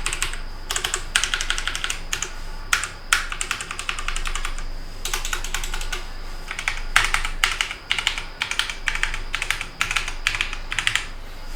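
Typing on a Logitech G512 Carbon mechanical keyboard with GX Brown tactile switches: rapid runs of key clicks in quick bursts with short pauses between them.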